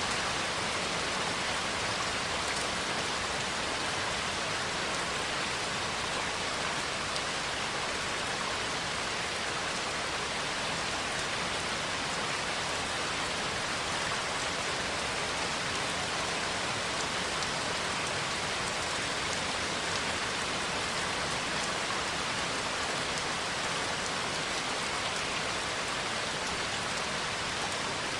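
Steady rain falling, an even hiss with no thunder or other sounds breaking through.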